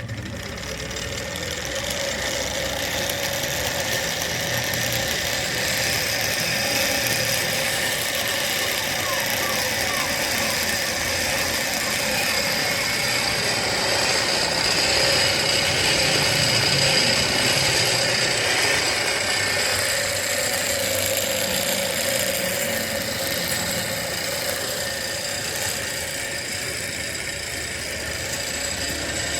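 Pedal-driven mixer grinder running: a bicycle-pedal chain drive turns a two-wheeler wheel that spins the mixer's gear wheel and blade, giving a steady mechanical whine.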